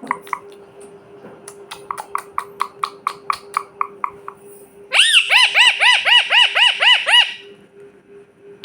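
Pet parrot vocalising. It makes a string of short clicking chirps, then about five seconds in a loud run of quick repeated whistled notes, about four a second, each rising and falling in pitch. A faint steady hum runs underneath.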